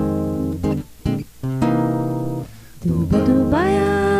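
Acoustic guitar strumming chords, several struck and left to ring with short breaks between them. Near the end a singing voice comes in over the guitar, holding one long wavering note without words.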